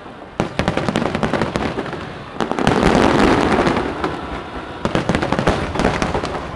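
Fireworks display finale: rapid cracks and bangs of bursting shells, building about two and a half seconds in to a dense, loud rumbling barrage that lasts over a second, then back to scattered cracks.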